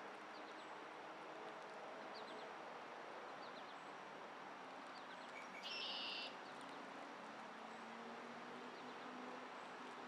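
Faint outdoor ambience: a steady background hiss with scattered short, high chirps, and a brief high buzz about six seconds in.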